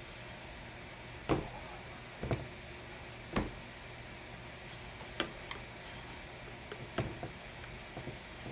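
Hands pressing and patting flour-coated chicken down into a glass baking dish, giving several irregular soft knocks against the glass. The loudest knocks fall in the first half.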